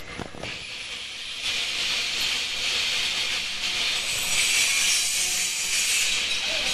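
Earloop mask-making machine running as mask fabric is fed through it, with a steady hiss that comes in about a second and a half in, after a few light clicks.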